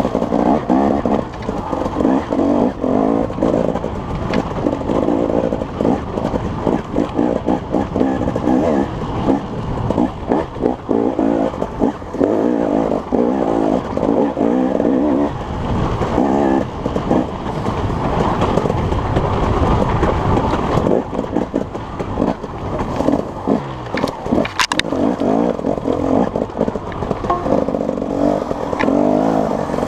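A motor vehicle's engine running, loud and fairly steady throughout.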